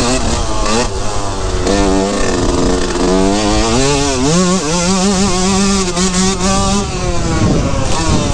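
2003 Yamaha YZ125's 125 cc single-cylinder two-stroke engine riding under load, revs rising and falling repeatedly. It holds a steady pitch for a couple of seconds, then backs off near the end.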